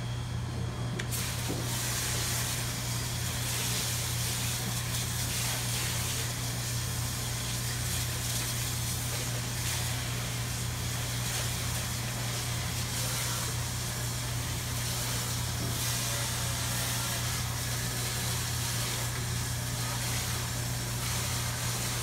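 Hot water spraying from a hose-fed shower-head spray nozzle against the stainless-steel walls of a commercial deep fryer vat, a steady hiss that starts about a second in. A steady low hum runs underneath.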